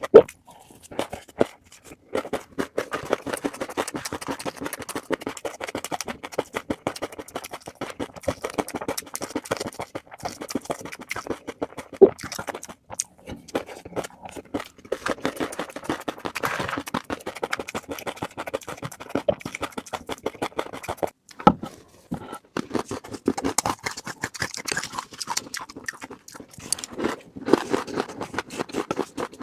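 Fish roe being handled close to the microphone, giving a dense crackling of many small pops and clicks, broken by brief pauses near the start and about three-quarters of the way through.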